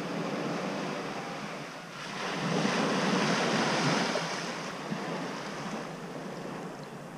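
Small waves washing onto a sandy beach, one surge swelling about two seconds in and fading again, with some wind on the microphone.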